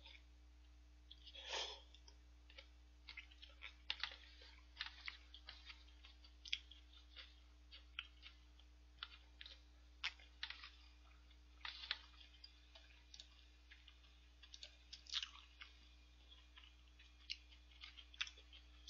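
Quiet eating of udon noodles with chopsticks close to the microphone: chewing with many short, scattered mouth and chopstick clicks, and one longer, louder sound about a second and a half in.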